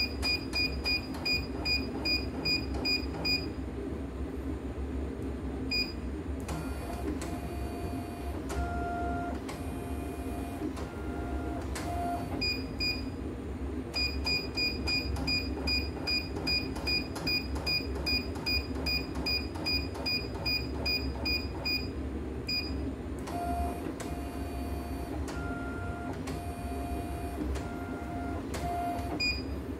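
CNY E900 computerized embroidery machine beeping: short, evenly repeated electronic beeps, about three a second, in two long runs. Between the runs its motors give a steady whine as the embroidery hoop moves.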